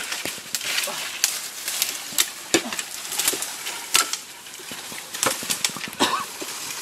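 Leafy branches rustling, with twigs crackling and snapping at irregular moments, as the branches of a fallen tree are pushed through and pulled on by hand.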